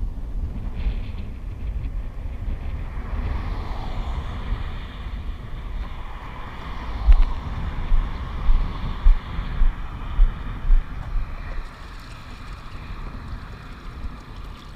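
Wind buffeting the microphone in gusts, strongest in the middle, over the hum of traffic passing on the highway bridge alongside.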